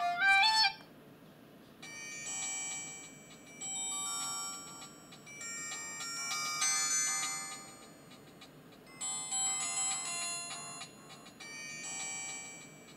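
Electronic ringtones from a myPhone Halo Easy phone's speaker. A stepped melody cuts off just under a second in, then a run of short chime-like tones follows one after another, each lasting about a second with brief gaps.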